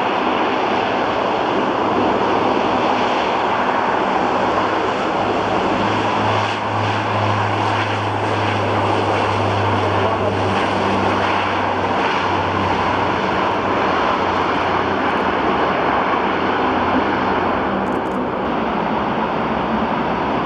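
A Lockheed C-130 Hercules' four turboprop engines and propellers running as it moves along the runway: a loud steady roar with a low propeller drone that swells about a third of the way in and then eases.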